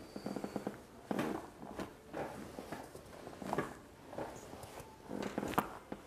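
Short, irregular knocks and rustles from a chiropractic adjustment on a padded adjusting table, as the chiropractor presses his weight down through a patient's folded arms onto her upper back, in about half a dozen separate bursts.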